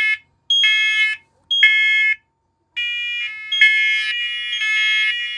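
Several interconnected First Alert Onelink smoke alarms sounding in test, loud high-pitched beeps in the three-beep pattern. About halfway in, more units join at other pitches, out of step, so the beeps overlap into a near-continuous shrill beeping.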